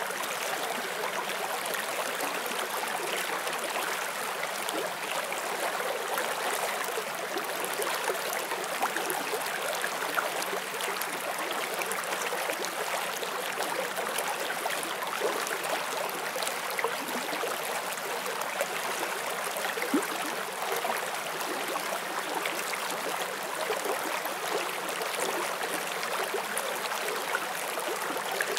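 Forest stream flowing over rocks: steady rushing water with small splashes and gurgles throughout.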